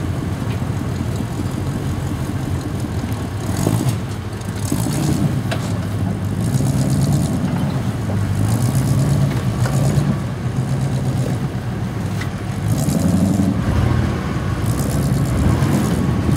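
Off-road 4x4 truck engine running and revving in repeated surges while the truck crawls up a rock ledge. Short bursts of hiss come and go over it.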